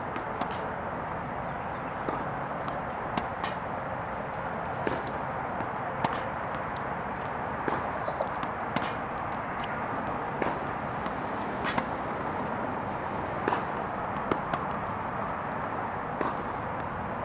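Sharp pops of tennis balls hitting a racket and the court, irregular at roughly one a second, over a steady background hiss that starts and stops abruptly.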